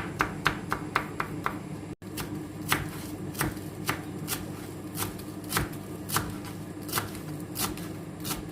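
Knife finely chopping garlic: quick, even strokes about five a second, then, after a short dropout about two seconds in, slower strikes about one or two a second.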